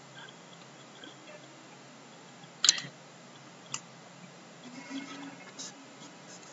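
Quiet background hiss with two sharp clicks about a second apart, the first much louder, and a few faint short sounds after them.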